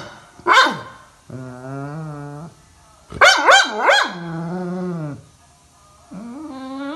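Yellow Labrador retriever vocalising in turns. Sharp high yelps come about half a second in and three in quick succession after three seconds. Between them are low, drawn-out howls, and a wavering howl begins near the end.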